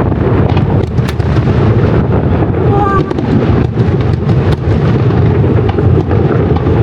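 New Year fireworks display going off continuously: a dense, loud rumble of booms with many sharp cracks and pops.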